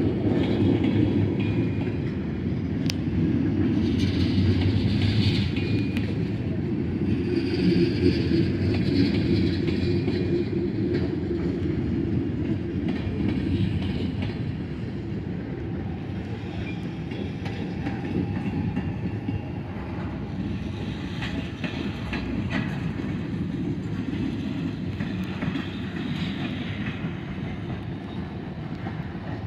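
Cars of a mixed freight train (tank cars and gondolas) rolling steadily past: a continuous rumble of steel wheels on rail with clickety-clack over the joints. It is loudest in the first half and eases slightly after about 14 seconds.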